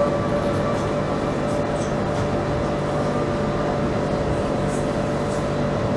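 CAF Urbos 3 tram running along its track, heard from inside the driver's cab: a steady rumble with a constant humming tone on top.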